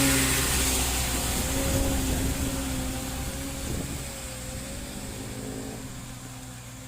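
Diesel truck engine running under load up a steep grade, a steady drone that fades away as the truck moves off.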